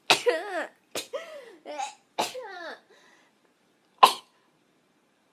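A young woman sneezing several times in quick succession, loud voiced sneezes with a falling pitch, then one short sharp sneeze about four seconds in.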